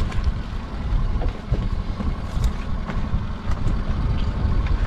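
Wind rumbling on the microphone over a small boat's outboard engine idling steadily, with a few light knocks as a crab pot is handled at the rail.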